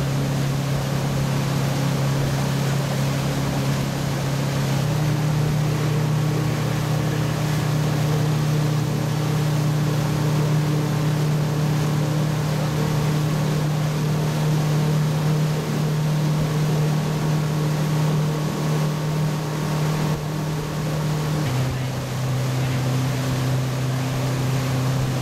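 Motorboat engine running steadily at speed while towing an inflatable tube, over the rush of wake water and wind. The engine hum steps up slightly in pitch about five seconds in and drops back near the end.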